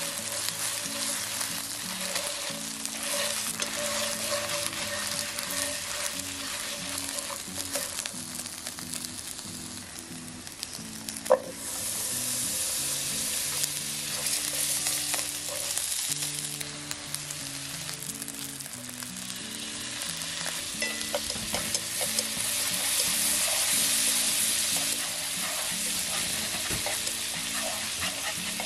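Chicken pieces sizzling steadily as they fry in a nonstick pan. About eleven seconds in there is a sharp click, after which the sizzling grows louder as butter melts and foams in the hot pan.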